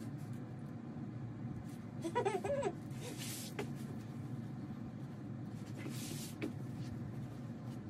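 Fabric quilt blocks being brushed and pressed onto a design wall: two short rustling swishes, about three and six seconds in, over a steady low room hum. A brief wavering vocal sound, like a hum, comes just after two seconds in.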